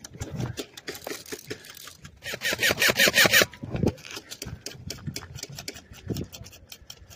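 Airsoft rifle being handled: a run of light clicks and rattles, with a louder, rapid rattling burst lasting about a second, a little over two seconds in.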